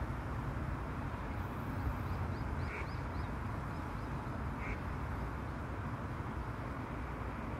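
Stream water flowing steadily, with wind buffeting the microphone. A bird twitters briefly about two to three seconds in, and two short calls sound about three and five seconds in.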